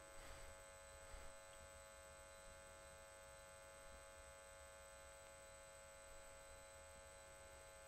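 Near silence: a faint, steady electrical hum with a thin high whine, the room tone of the lecture recording.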